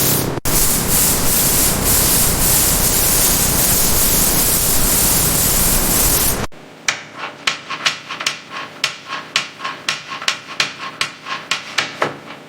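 A loud, steady hiss with a brief break just after the start, then after an abrupt cut a run of quick rubbing strokes, about four a second, like a hand tool or pad worked back and forth over a hard surface.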